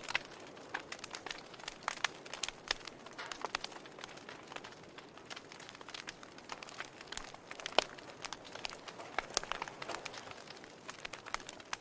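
Fireplace fire crackling: irregular sharp pops and snaps over a soft hiss, with one louder pop about two thirds of the way through.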